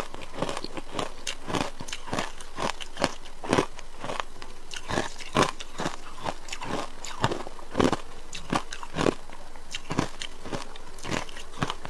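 Ice being chewed and crunched between the teeth, a quick irregular run of sharp crunches, about two to three a second.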